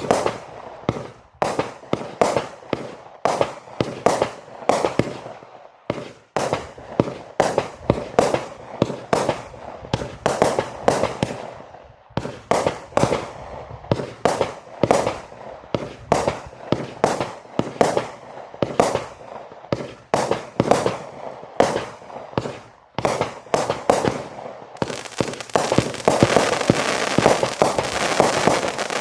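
'The Reaper' consumer firework firing a rapid string of shots and bursts, about two a second. In the last few seconds it turns into dense, continuous crackling.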